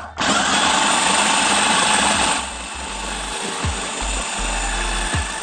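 Electric food processor running, its blade whizzing a creamy dressing into a smooth sauce. It stops for a moment just after the start, then runs on, somewhat quieter from about two and a half seconds in.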